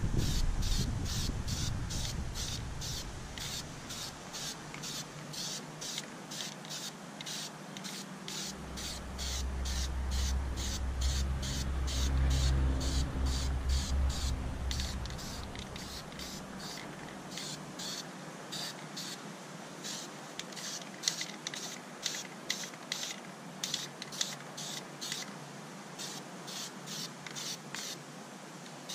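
Aerosol spray-paint can (Krylon Camouflage flat paint) hissing as a coat is sprayed onto the gun. A high, even pulse about three times a second runs throughout, and a low rumble rises near the start and again around the middle.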